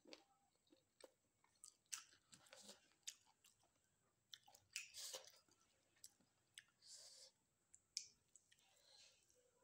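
Faint chewing of a mouthful of rice: irregular soft wet smacks and small crunches, with a few sharper clicks.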